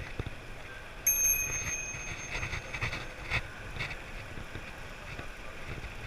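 A bicycle bell rung once about a second in, its ring fading over a second or two, followed by a few light clicks, over steady wind and road noise from riding.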